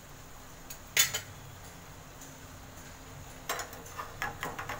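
A pan lid being set back on a cooking pan: one sharp clink about a second in, then several lighter clinks and knocks near the end.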